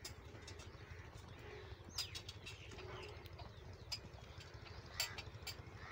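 Donkey cart loaded with soil rolling along a dirt track: a low, steady rumble with a few sharp clicks and knocks from the cart, and a faint bird chirp about two seconds in.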